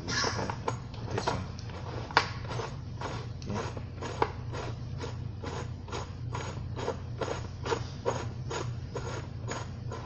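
Key being turned repeatedly in the cylinder of a VingCard Essence mortise lock, the lock mechanism clicking about two to three times a second, with two sharper clicks about two and four seconds in.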